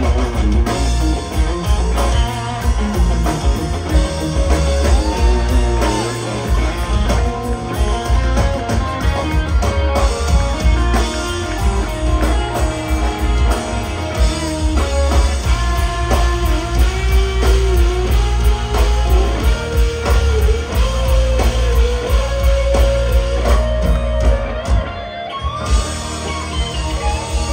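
A live country band playing with electric guitars, bass and drums, and a lead line that slides and bends between notes.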